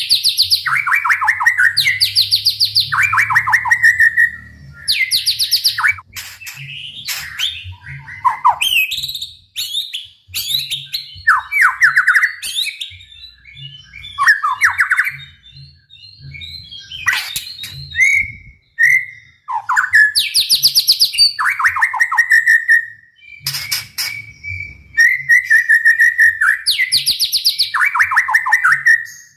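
White-rumped shama singing loudly: rapid high trills and downslurred rattling notes, delivered in repeated bursts of phrases with brief pauses between them, mixed with sharp clicking notes.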